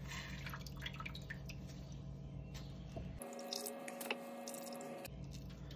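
Faint wet squishing and dripping of braising liquid as gloved hands pull the bone out of a braised venison shoulder in a roasting pan and work the meat apart.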